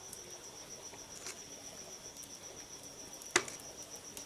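Crickets chirping in a steady, rapid, high-pitched pulse, with one sharp crack a little over three seconds in.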